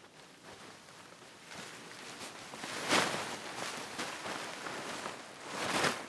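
Nylon tent fabric rustling and swishing as it is handled and shaken out, over dry leaf litter. Two louder swishes come about three seconds in and near the end.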